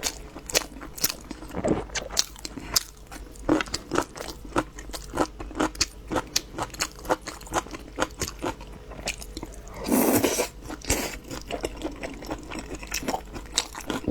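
Close-miked chewing: a person eating with many short, sharp crunches and mouth clicks, a few each second. About ten seconds in there is one longer, louder wet sound.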